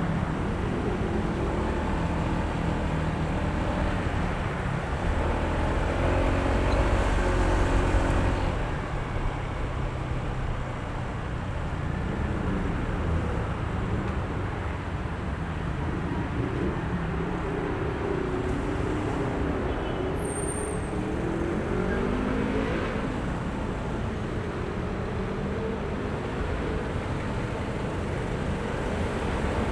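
Honda ADV160 scooter's single-cylinder engine running while riding, its pitch rising and falling several times with the throttle over a heavy low road and wind rumble. It eases off slightly about eight seconds in.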